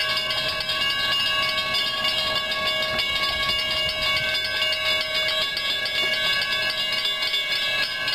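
Florida East Coast Railway freight train approaching: a steady sound of several sustained ringing tones with a fast, regular flutter, over a low rumble.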